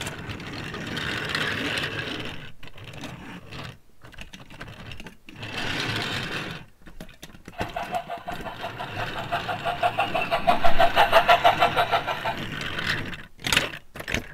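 Small plastic toy train and carriages pushed by hand across a tabletop, with plastic wheels rolling in several short runs separated by brief pauses. In the middle stretch a fast, even mechanical rattle grows louder, then stops about two seconds before the end.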